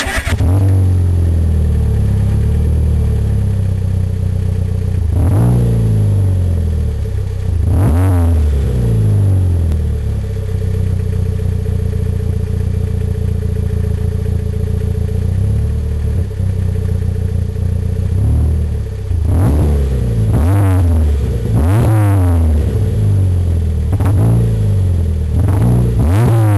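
Citroën Saxo VTR 1.6-litre four-cylinder engine through an aftermarket Powerflow exhaust, idling with sharp rev blips: two about five and eight seconds in, then a run of five in the last eight seconds.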